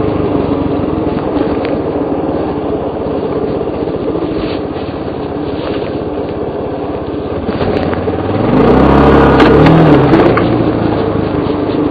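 Suzuki DR350 enduro's single-cylinder four-stroke engine running under way on a rough dirt trail, with scattered knocks and rattles from the bumps. About eight and a half seconds in, the engine revs up louder for about two seconds, its pitch rising and falling, then eases off.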